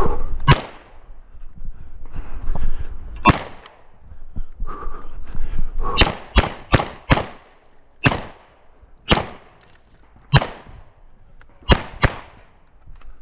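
Shotgun shots, about a dozen, fired at an uneven pace: single shots with pauses of a second or more, and a quick run of four shots about six seconds in. Each shot is followed by a short echo.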